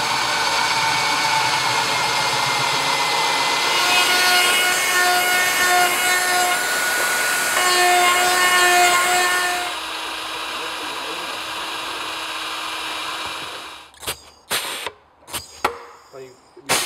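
Power drill with a hole saw cutting through the plastic wall of an airbox. A high-speed rotary tool with a grinding bit then whines as it opens the hole out, dropping to a lighter steady run. Near the end come a few sharp clicks.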